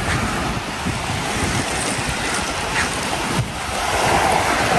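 Surf washing onto a sandy beach with wind buffeting the microphone, a steady rushing noise that swells near the end.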